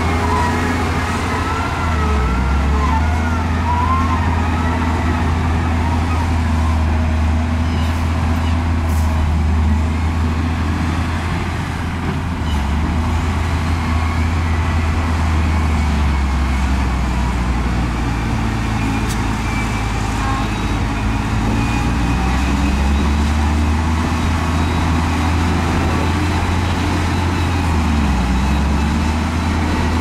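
Heavy diesel earthmoving machinery running under load: a loud, deep engine drone whose revs dip and rise several times. A faint wavering high tone sounds over it in the first few seconds.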